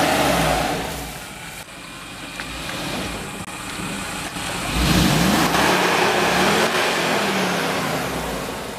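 Mercedes G500's V8 engine revving as the 4x4 pulls through deep mud ruts: loud at first, easing off, then a hard rev rising in pitch about five seconds in, fading near the end.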